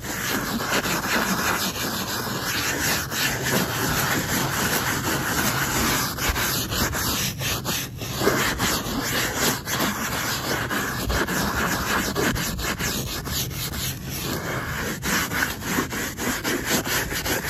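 Plastic bristle brush scrubbing briskly over wet marine vinyl boat seat upholstery, working mildew stain remover into it: a continuous scratchy scrubbing made of many quick, uneven strokes.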